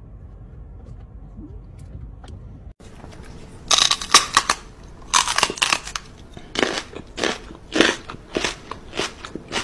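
A run of loud, wet kissing smacks, a person kissing a dog, coming about one and a half to two times a second for some six seconds.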